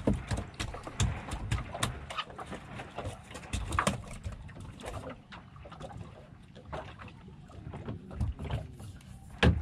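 Water slapping and lapping against a small fishing boat's hull, with scattered knocks and clatter on deck; a sharp knock near the end is the loudest.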